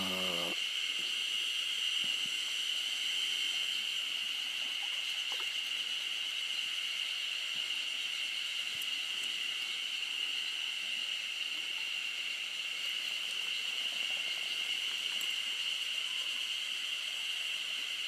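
Steady, high-pitched insect chorus droning without a break.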